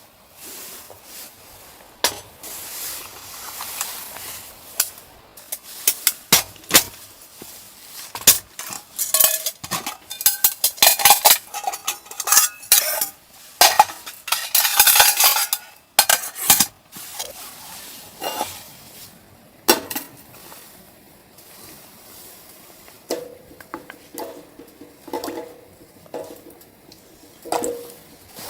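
Irregular clinks, knocks and scrapes of things being handled, busiest in the middle, with a few short ringing tones near the end.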